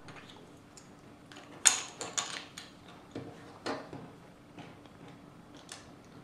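Plastic Lego bricks clicking as they are picked off a wooden tabletop and pressed onto a model: a string of small sharp taps and snaps, the loudest about a second and a half in.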